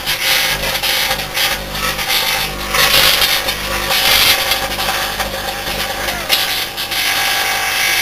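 Microwave oven running with something inside arcing and burning: a rough, crackling rasp of sparking that surges and fades, over the oven's steady low hum.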